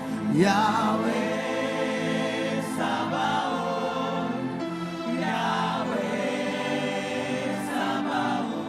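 Slow gospel worship singing by a choir, with long held notes that glide between pitches.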